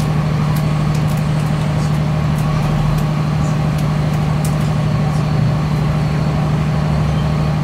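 Steady drone inside the passenger saloon of a CAF Class 3000 diesel multiple unit standing at a platform, mostly from the air conditioning, with the idling diesel engine beneath it. It holds one low, even pitch.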